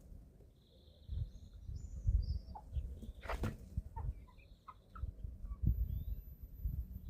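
Young chickens feeding, with soft low thumps from pecking and scratching and short high chirps. One sharper call comes about three seconds in.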